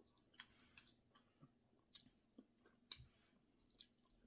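Faint chewing and wet mouth clicks of a person eating by hand, a few short smacks scattered through.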